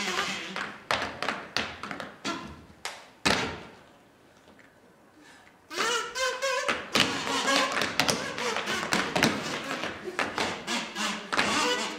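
Tap shoes striking a wooden stage floor in quick runs, ending in one heavy thud about three seconds in. After a short near-silent pause, the taps resume around halfway through over music with a sung or voice-like melody.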